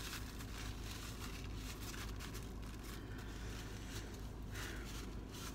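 Faint, steady low hum inside a car's cabin, with no distinct eating or handling sounds.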